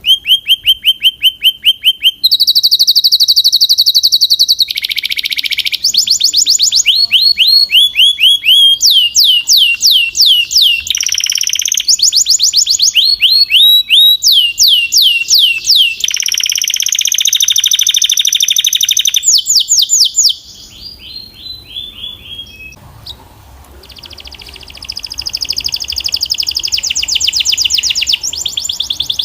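Belgian canary singing a long song of rapid repeated phrases: fast runs of sharp falling notes alternating with steadier buzzy rolls, the phrase changing every second or two. The song is loud for about twenty seconds, then turns softer toward the end.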